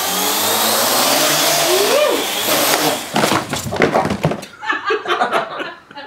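Parrot AR.Drone quadcopter's four rotors whirring loudly for about three seconds, then breaking into a rapid series of clattering knocks as the drone crashes and tumbles. A person's voice follows near the end.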